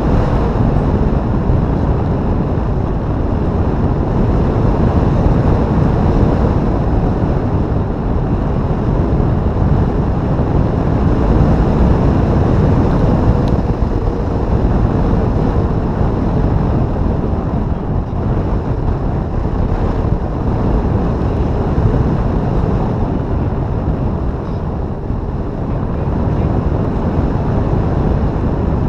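Airflow buffeting the microphone of a camera mounted on a hang glider's wing in flight: a loud, deep, steady rush of wind.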